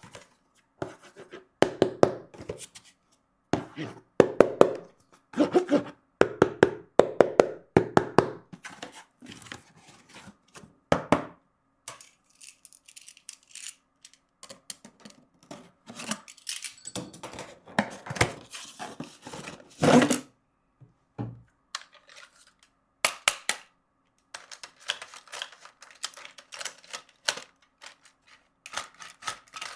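A toy and its packaging being handled during unboxing. Dense clusters of knocks and clicks of hard plastic come first, then lighter, sparser scratching and crinkling.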